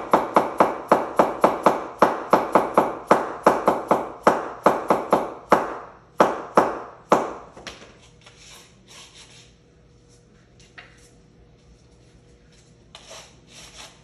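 A hammer striking repeatedly, about four blows a second, each with a short ring, slowing and stopping about seven seconds in. Softer knocks and scrapes follow.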